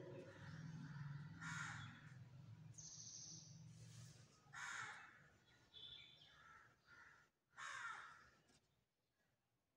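Faint crow cawing, several separate caws roughly three seconds apart, with a low steady hum under the first half.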